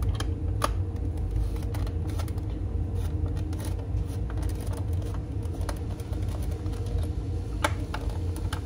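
A steady low hum fills the room, with a few light clicks and rustles as screws are turned out of a polystyrene diecast base with a screwdriver.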